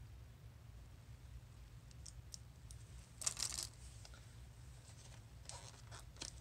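Cardboard box of a watercolor paint set being handled and opened by hand: a few light clicks, a brief rustle of cardboard about three seconds in, and more rustling near the end, over a faint steady low hum.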